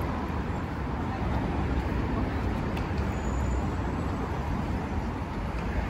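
Steady city traffic noise on a busy street, an even low rumble of passing cars and buses.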